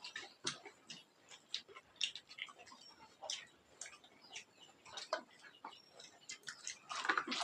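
Faint, scattered clicks and smacks of people eating with their hands: chewing, lip smacks and fingers and dishes touching plates and bowls, a little busier near the end.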